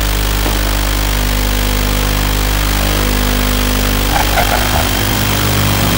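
Steady electrical hum with a constant buzz of many fixed tones over even hiss, unchanging in pitch. A patchier rustling noise joins about four seconds in.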